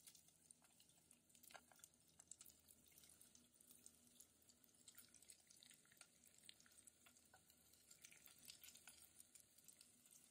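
Faint sizzling of hot oil in a small frying pan as sliced onion, green chili, garlic, ginger and curry leaves go in, with scattered small crackles throughout.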